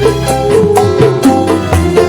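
Dangdut band music with no singing: a steady hand-drum beat, a bass line and a held melody.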